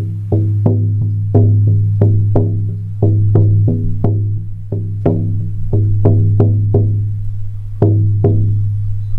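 16-inch buffalo-skin shamanic frame drum struck with a firm beater in a steady beat of about three strokes a second, in short runs with brief pauses. Each stroke leaves a deep, ringing boom. The sound is louder and brighter than a soft beater gives.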